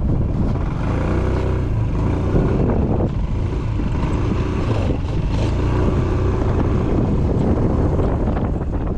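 Yamaha S-MAX 155 scooter's single-cylinder four-stroke engine pulling away from a stop and running steadily at riding speed. It comes in suddenly loud right at the start.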